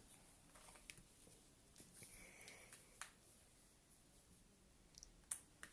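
Near silence with a few faint, scattered clicks and taps, typical of a phone and a USB charging cable's plugs being handled.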